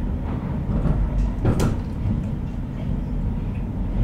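Stockholm Metro C30 train running at speed, heard inside the carriage: a steady low rumble, with a sharp click about a second and a half in.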